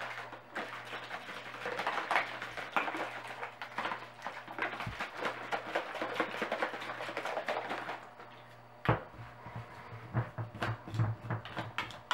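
Water sloshing inside a plastic shaker bottle as it is shaken hard, with a small plastic salt and pepper shaker tumbling around in the water. The shaking stops about eight seconds in, followed by a single knock and a few soft handling bumps as the bottle is set down and held.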